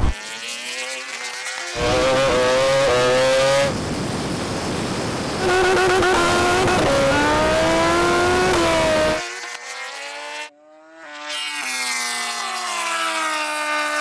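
Motorcycle engines at full throttle in a standing-start drag race, heard in several short cuts. In each, the engine note climbs and then falls back at each upshift. The long run in the middle is the supercharged Suzuki Hayabusa's four-cylinder engine pulling through the gears.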